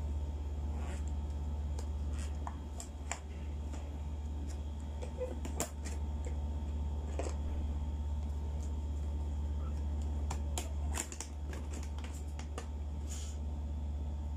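Foil-lined lids being lifted off aluminium foil takeaway trays, with scattered crinkles and sharp clicks, over a steady low hum.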